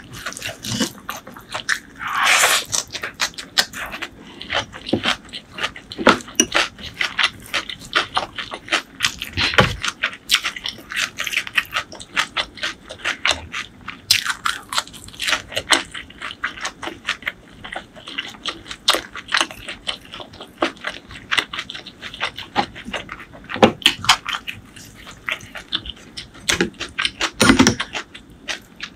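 Close-miked eating sounds: wet chewing, lip smacks and bites on rice and spicy curry eaten by hand, with a bite into a fried green chilli about halfway through. A fast, uneven run of small sharp clicks and squishes.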